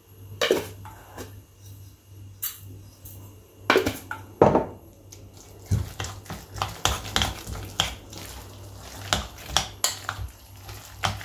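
Metal spoon clinking and scraping against a glass mixing bowl while stirring thick vegetable fritter batter, with a couple of louder knocks about four seconds in.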